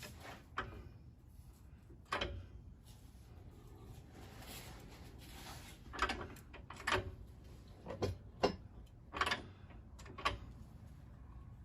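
Hydraulic floor jack being pumped by hand to push a new strut up into its mount: a series of short clunks and clicks, roughly one a second, from about two seconds in.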